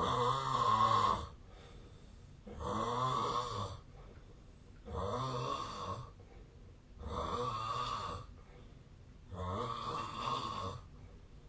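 A man snoring heavily in his sleep: five loud snores, roughly every two and a half seconds, each a little over a second long, with a low buzz that rises and falls in pitch.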